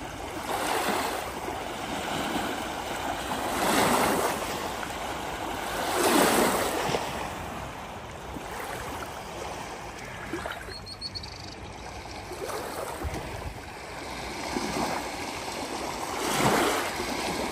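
Small lake waves washing onto a sandy shore, swelling and falling back in irregular surges a few seconds apart.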